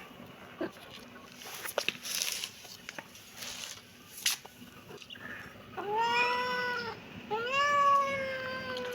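Kitten meowing twice, two drawn-out calls in the second half, the second longer and louder. A few faint clicks and rustles come before them.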